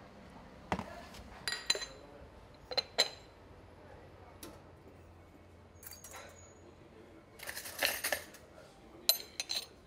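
Irregular clinks and taps of a porcelain cappuccino cup, saucer and stainless milk pitcher being handled on a bar counter, with a short run of clattering about eight seconds in.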